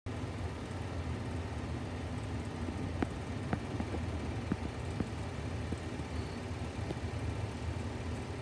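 A steady low mechanical hum, like a small motor running, with a few scattered sharp clicks about halfway through.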